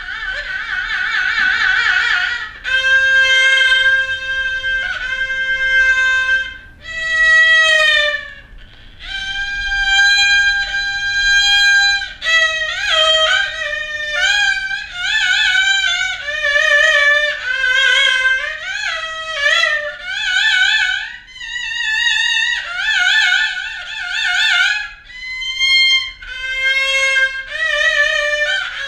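Haegeum, the Korean two-string fiddle, playing sanjo in the slow jinyangjo movement: long bowed notes with wide wavering vibrato at first, then from about halfway quicker ornamented notes with pitch bends and slides between them.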